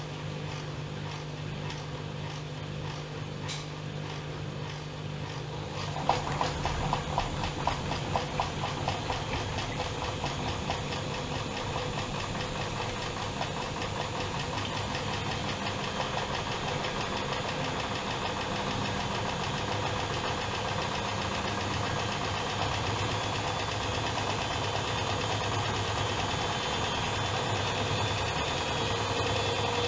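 Privileg Dynamic 7420 washing machine running: a steady hum, then about six seconds in the drum motor picks up with a rattle and keeps speeding up, getting slowly louder with a whine that rises near the end, as when a spin begins.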